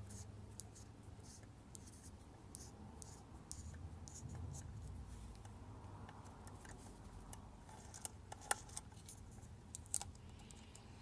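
Faint scraping and small clicks of a screwdriver backing out the screws that hold a door lock's housing, with a few sharper metal clicks near the end.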